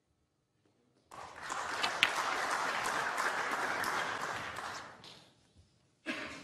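Audience applauding, starting about a second in and dying away after about four seconds, with a brief burst of sound near the end.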